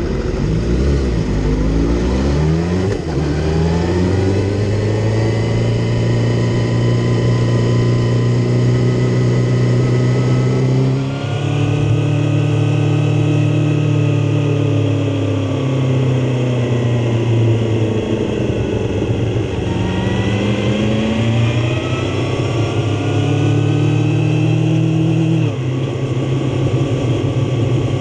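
Suzuki GSX-R750 K5's inline-four engine heard from on board, pulling away and accelerating hard. Its pitch climbs and drops suddenly at gear changes about eleven seconds in and again near the end, with a slower fall and rise in between as the throttle is eased and opened again.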